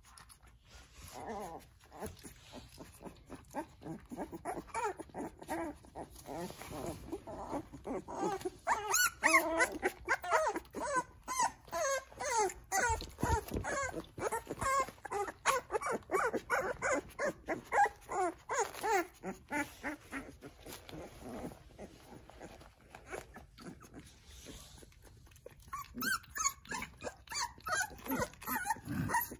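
Young puppies whimpering: many short cries that rise and fall in pitch, thickest through the middle stretch and again near the end, over soft clicks of lapping at a bowl of milk formula.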